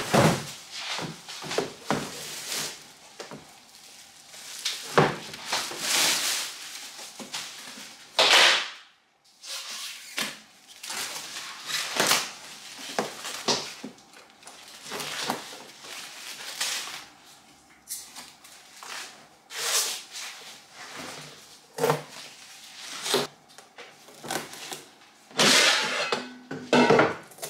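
Unpacking a Tefal air fryer: plastic wrapping and protective film rustling and peeling, with knocks and clacks of the fryer's plastic body and basket against a wooden table, in irregular bursts with a short lull about nine seconds in.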